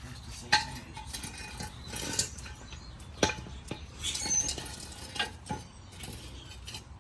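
Metal clinks and clanks of tools and parts being handled while a pickup's wheel is taken off, with a sharp clank about half a second in and another about three seconds in, and short scraping sounds between them.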